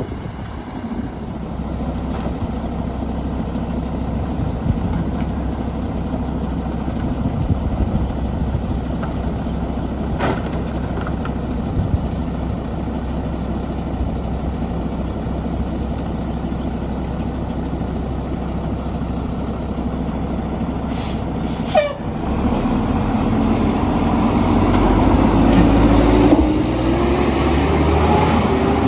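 Mack LE garbage truck's diesel engine running steadily, with a brief hiss of air about 21 seconds in. From about 22 seconds in the engine revs up, its pitch rising steadily and getting louder.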